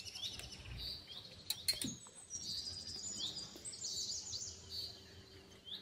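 Small birds chirping and twittering in quick repeated high notes, with a couple of sharp clicks about a second and a half in.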